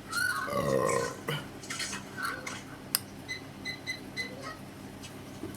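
A deep burp lasting about a second, followed by wet chewing and mouth clicks while eating. A few short high beeps sound about halfway through.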